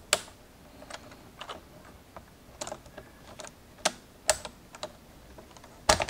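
Irregular plastic clicks and snaps of keycaps being pulled off and pushed onto the key stems of a Topre Realforce 104UB keyboard, with a few sharper snaps among lighter clicks.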